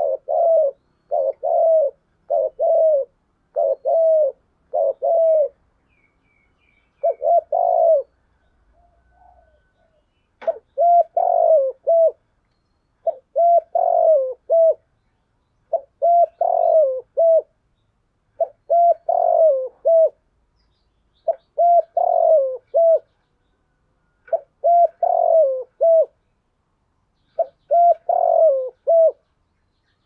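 Spotted dove cooing in repeated phrases: a quick run of short coos in the first five seconds, then, after a pause, longer multi-note coo phrases about every two and a half seconds. This is a decoy dove's 'thúc gù' urging coo, used to draw in wild doves.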